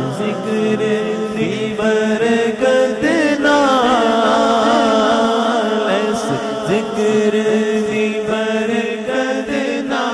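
A man singing a devotional Punjabi naat into a microphone, without instruments, in long drawn-out wavering melodic lines over a steady low drone.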